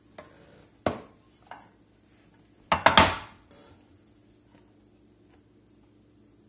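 Kitchenware being set down on a wooden cutting board: a stainless steel mixing bowl and a glass baking dish knocking onto the board. A sharp knock just under a second in, a lighter one shortly after, and a louder clatter of two or three knocks about three seconds in.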